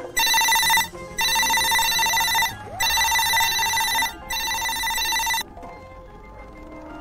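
Telephone ringing: four electronic rings, each about a second long with short gaps between, stopping about five and a half seconds in.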